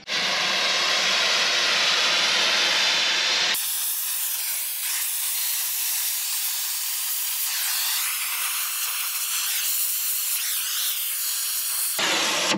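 Gas torch flame hissing steadily as it burns the paint off steel back to bare metal, ready for welding. About three and a half seconds in the hiss turns abruptly thinner and higher, and shortly before the end it switches back to the fuller sound.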